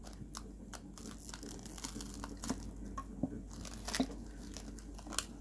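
Plastic cling film crinkling and crackling in irregular small snaps as it is pulled and stretched over a container.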